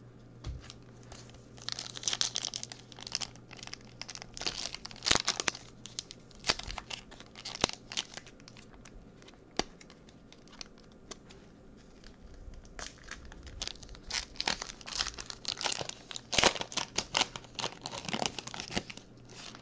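Foil trading-card pack crinkling and being torn open by hand. There are two spells of dense crinkling, one early and one in the last third, with scattered single crackles between them.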